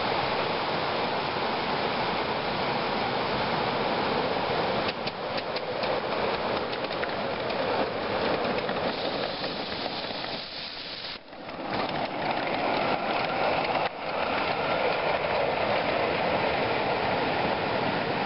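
Miniature live-steam locomotive running by with a steady hiss of steam, its wheels clicking over the rails in a quick run of ticks partway through.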